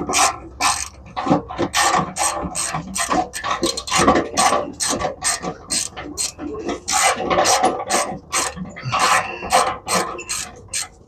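Hand ratchet wrench clicking in quick, uneven strokes, a few clicks a second, as bolts are turned.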